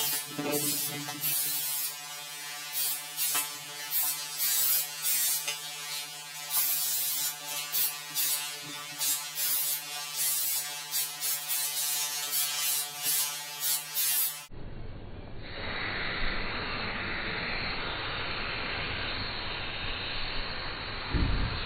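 Short, irregular hisses of a spray-paint can tagging a wall, over a steady electrical hum. About two-thirds through the sound cuts abruptly to a duller, steady rushing noise, with a low thump near the end.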